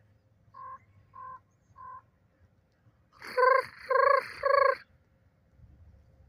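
A bird calling: three short, quieter calls, then a little over a second later three loud, longer calls in quick succession.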